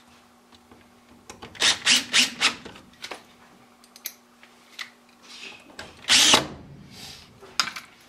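Short bursts of work noise from hands and tools on the furnace's pressure switches and sheet-metal cabinet. There are three or four quick scraping, rattling strokes about two seconds in and one louder stroke about six seconds in, with a few light clicks between them. Under them runs a faint steady hum that stops a little before six seconds in.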